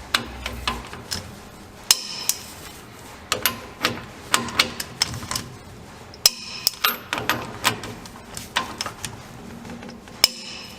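Hand tools clinking and tapping on the steel parts of a rear differential during reassembly: irregular sharp metallic clicks and knocks, some in quick pairs, several with a short ring after them.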